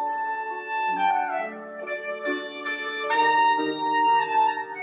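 Clarinet and grand piano playing classical music together: the clarinet holds long notes over piano chords, with a short falling phrase about a second in.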